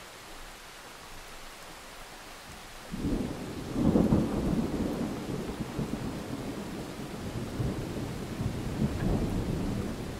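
Thunder: a low rumble rises suddenly about three seconds in, is loudest a second later and rolls on unevenly until near the end, over a steady hiss.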